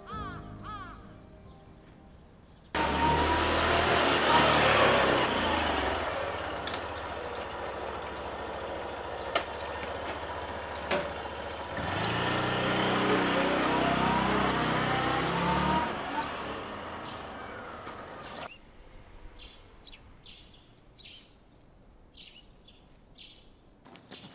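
A motor vehicle's engine passing along a street, starting abruptly about three seconds in, its pitch sweeping down and later up again before cutting off. Then birds chirping in short calls.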